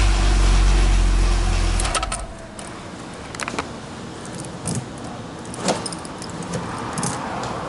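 A Chevrolet Omega 4.1's inline-six idles and is switched off about two seconds in, the engine hum stopping abruptly. After that a bunch of keys jingles and clicks as a key is turned in the car's door lock.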